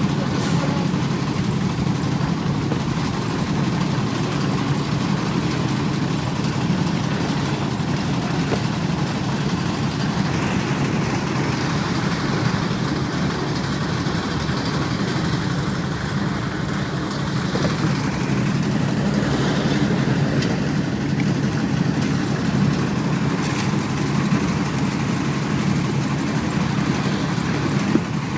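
Old diesel engine running steadily as it drives a concrete mixer.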